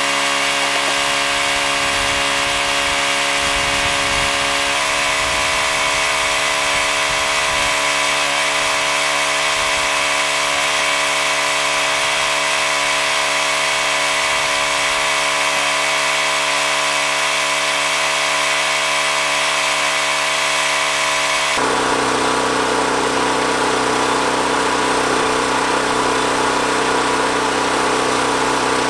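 A small engine runs steadily throughout. About 21 seconds in, a louder, rougher power-tool whir joins it and carries on.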